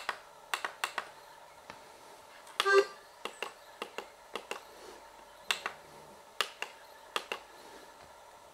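Plastic push buttons on a Grundig CCD 5690 CD clock radio being pressed and released, giving about a dozen sharp clicks, often in quick pairs. There is a brief pitched blip about two and a half seconds in.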